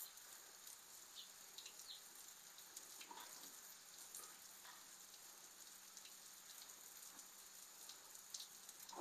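Near silence: a faint steady hiss with scattered soft ticks of dripping water.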